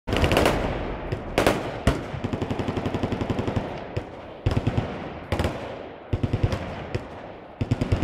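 Machine guns firing in bursts on an outdoor range: a dense burst at the start, single loud shots, then a steady run of about ten shots a second, and further short bursts near the end, each dying away in echo.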